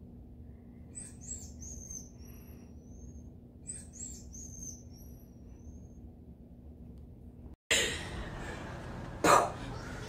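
Faint, high-pitched chirps, each a short slide in pitch, coming in several small groups about a second apart. About three-quarters of the way through, the sound cuts abruptly to a louder, noisy stretch with one loud thump near the end.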